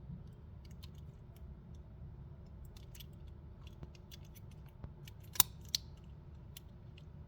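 Toy-car packaging being opened by hand: a run of small sharp clicks and snips, with two louder clicks a little past halfway.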